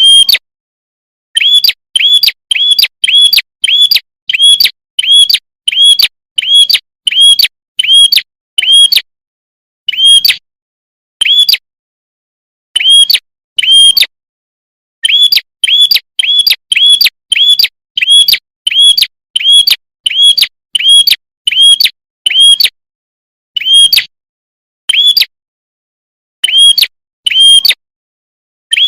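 Bird-trapping lure recording of the prenjak kepala merah's call: loud, short, clear chirps repeated about two a second in runs, broken by pauses of one to two seconds.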